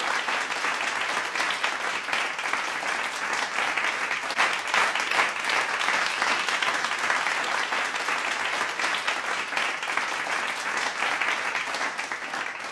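A large crowd applauding steadily, many hands clapping at once in a dense, even patter; it tails off at the very end.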